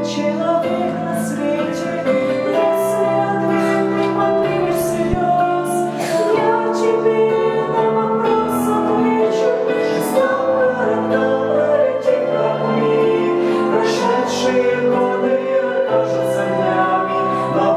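A small mixed vocal group of two women and two men singing a song together in harmony, with long held notes.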